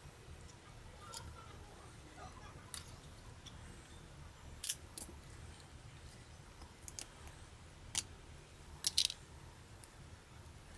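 Irregular sharp clicks and taps of small plastic and metal parts as a Nikon Coolpix AW110 compact camera is handled and taken apart with tweezers, the loudest a quick pair near the end. A low steady hum runs underneath.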